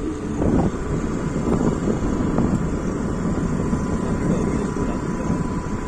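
Wind buffeting a phone's microphone, a steady low rumble.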